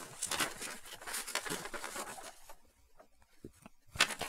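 Paper instruction sheet rustling and crinkling as it is handled and unfolded, with a sharp, louder crackle about four seconds in.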